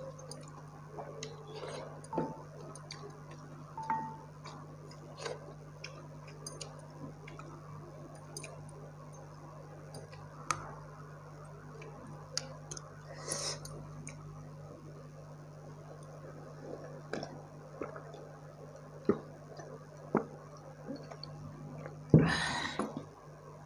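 Close-miked eating by hand: fingers working soft rice on a plate and mouth clicks and chewing as scattered small clicks and ticks, over a steady low hum. Near the end a louder, longer noisy burst comes as the glass bowl of rice water is picked up.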